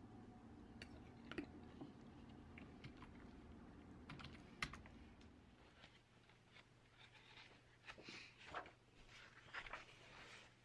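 Faint, sparse light clicks and taps of a metal spoon against a glass bowl, then soft rustling of book pages and several sniffs in the second half.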